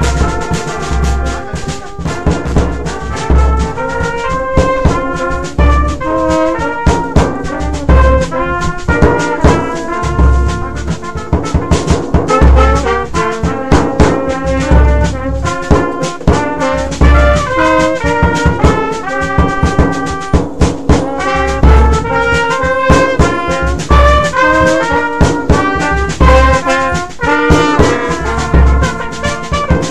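Brass band playing: trombone and trumpets carry moving melody lines over hand drums and a steady bass-drum beat.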